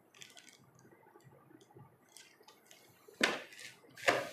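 Faint handling noise with light clicks and rustles, then two short, louder swishes about three and four seconds in.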